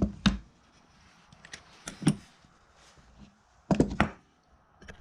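Several sharp metal knocks and clanks from wrenches working on a pair of steel coupling nuts as they are tightened against one another, with a close pair of knocks about three and a half seconds in.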